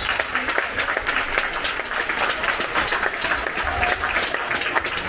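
Spectators applauding, many hands clapping in a steady patter, echoing in the sports hall.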